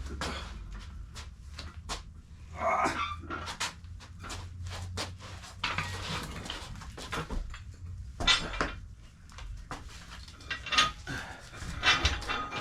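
A house cat crying a few times, mixed with many short knocks and clatters.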